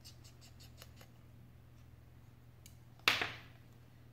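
A precision screwdriver turning the bottom screws of an iPhone gives a quick run of faint clicks, about six a second. About three seconds in comes one sharp knock that rings briefly and dies away.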